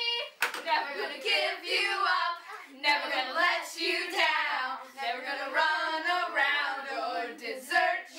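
Children's voices singing together in a continuous run of sung phrases, with no instruments.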